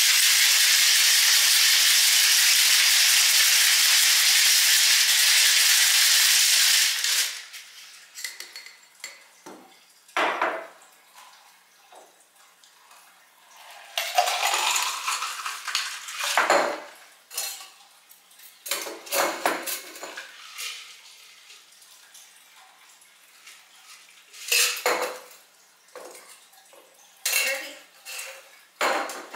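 Ice rattling hard inside a metal cocktail shaker during a vigorous shake, stopping about seven seconds in. Then scattered clinks and knocks of metal and glass as the shaker is opened and the drink is poured over ice into a glass.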